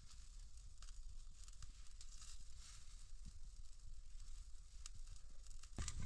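Small wood fire crackling faintly, with scattered sharp pops over a low hiss. Just before the end a louder, low sound comes in.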